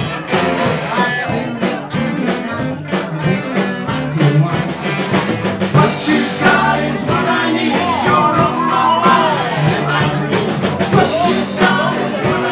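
Blues-rock band playing live: drums keeping a busy beat under electric guitars, bass and keyboard, with a saxophone. A melody line bends up and down in pitch through the middle.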